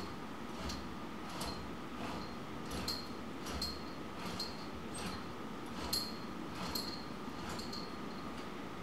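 Steady, even ticking, about four ticks every three seconds, like a clock, over a faint steady hum.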